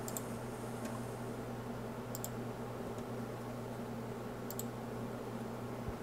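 A few sparse computer mouse clicks, two of them in quick pairs, over a steady low hum.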